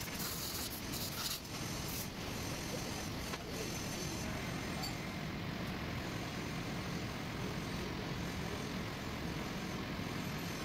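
Milling machine running with a fluted end mill cutting a bolt hole into a cast iron flange, a steady machining noise throughout. A few short clicks sound in the first couple of seconds.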